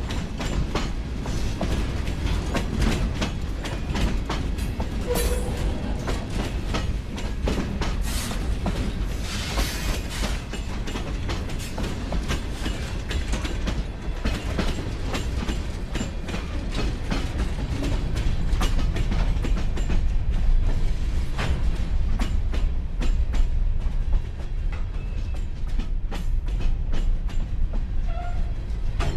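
A loaded freight train's cars, boxcars, tank cars and covered hoppers, rolling past close by: a steady low rumble of steel wheels on rail, with constant clicking and clanking as the wheels cross the rail joints.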